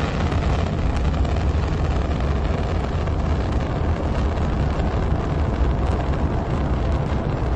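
Space Shuttle launch roar from its solid rocket boosters and main engines: a loud, steady, deep rumble with a crackling edge during ascent.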